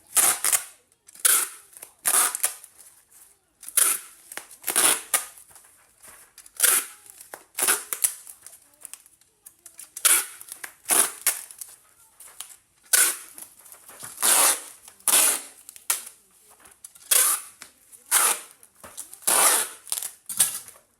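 Packing material being handled to wrap a package: short crinkling, tearing bursts about once a second, sharp and bright.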